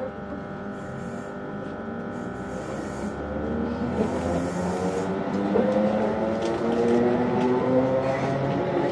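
Electric multiple-unit train pulling away from a station, heard from inside the carriage: a steady electrical hum gives way to a whine that rises in pitch as it gathers speed. The running noise grows louder throughout.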